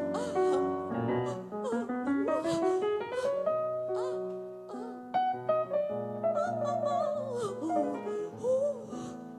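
A woman singing a French chanson with vibrato over grand piano accompaniment; her voice climbs in a long rising line about two seconds in and glides back down near the end.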